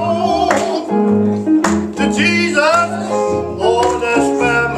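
Gospel group singing with vibrato over a live band: bass, keyboard and a steady drum beat.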